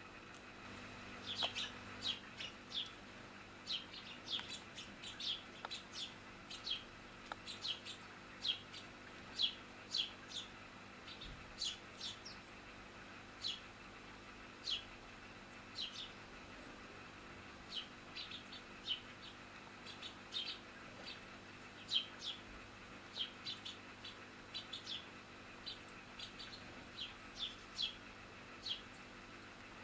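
House sparrows chirping: a long run of short, sharp chirps, often several a second, with a brief lull partway through.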